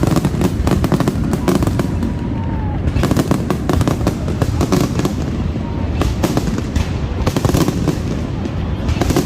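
Fireworks display going off in a rapid, unbroken string of bangs and crackles, several a second, over a low rumble.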